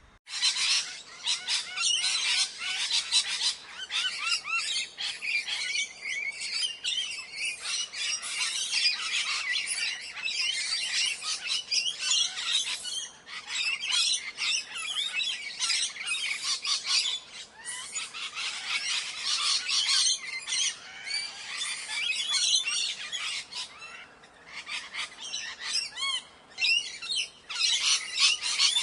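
Ringneck parrot calling: rapid, shrill chattering and squawks, nearly continuous, starting abruptly and broken by a few short pauses.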